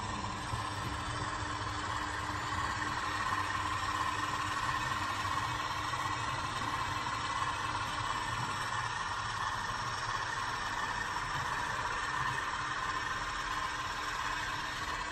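OO gauge model diesel locomotive running along the track, giving a steady, unchanging mechanical drone.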